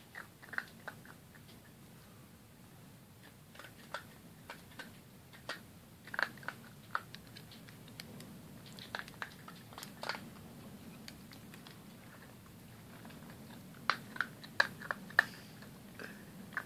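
A puppy eating, crunching and chewing its food at a metal bowl: irregular sharp crunches and clicks, with a quick run of louder ones about two seconds before the end.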